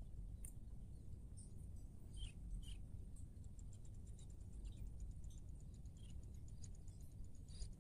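Faint field ambience: a steady low rumble of wind on the microphone, with scattered short high chirps. About five seconds in there is a quick run of fine ticks lasting a couple of seconds.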